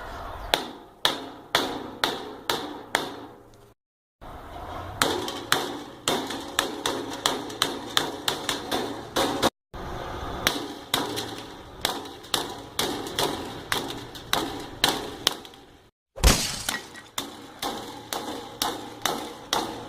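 A hammer repeatedly smashing an iPhone 6, glass screen and metal body cracking under about two blows a second. The blows stop for a moment three times.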